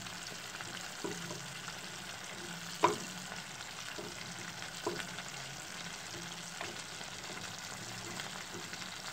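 Wooden spoon stirring a watery soup mix in a ceramic plate, knocking against the plate four times about two seconds apart, the loudest about three seconds in, over a steady hiss.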